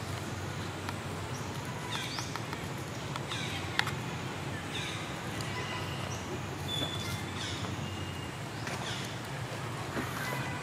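Scattered short, high chirping animal calls, about half a dozen, over a steady low outdoor background hum, with one sharp click just before four seconds in.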